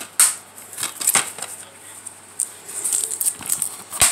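Handling noise: a run of light clicks and knocks of objects being moved, with a sharp click near the end.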